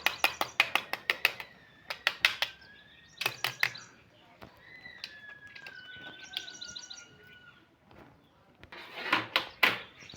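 Quick runs of sharp taps as the last piston of a Tata Sumo Gold engine is knocked down through its ring clamp into the cylinder liner.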